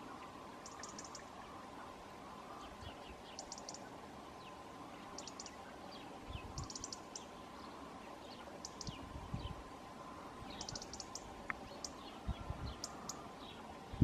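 Small songbirds chirping and twittering in quick, thin, high clusters every second or two over a steady low hum, with a few soft low thumps in the second half.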